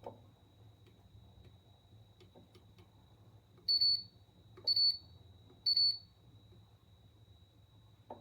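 Three short, high electronic beeps about a second apart, over a faint steady hum.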